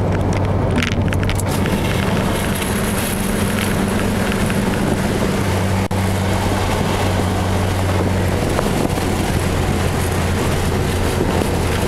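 Mazdaspeed3's turbocharged 2.3-litre four-cylinder, fitted with a Corksport cat-back exhaust and CNT Racing catted downpipe, cruising steadily at highway speed, heard inside the cabin. A steady low exhaust hum sits under even road and wind noise.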